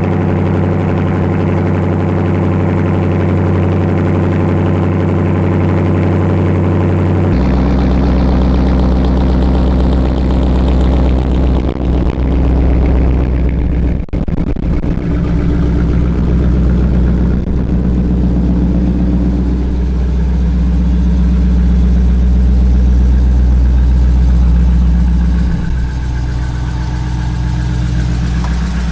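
Dodge Challenger R/T's 5.7-litre Hemi V8 idling steadily, heard close to the exhaust tips and from under the car. The sound turns deeper and fuller about seven seconds in, with a brief dip around halfway.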